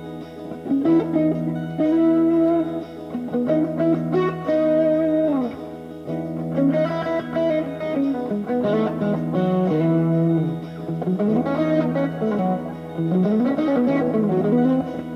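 A 1978 Fernandes FST-50 electric guitar playing melodic single-note lines with bent notes over a steady low note held underneath.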